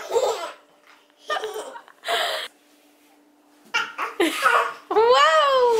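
A toddler laughing and babbling in short bursts, ending in one long high squeal that rises and then falls in pitch.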